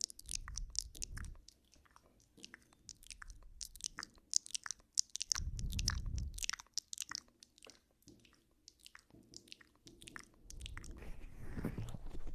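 Wet ASMR mouth sounds close to a binaural microphone, mimicking ear-nibbling: many quick, sharp clicks and smacks. Two spells of low rumble, about a second each, come near the start and around the middle.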